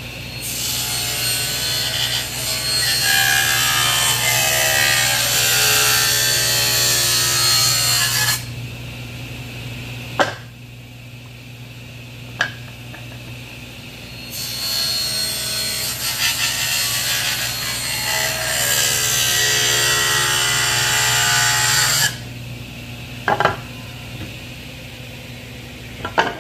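Table saw cutting through a steam-bent wooden drum shell in two long passes of about eight seconds each, the blade's pitch shifting as it takes the wood, over a steady low hum. Between and after the cuts come a few sharp knocks as the shell is handled and the halves are set down.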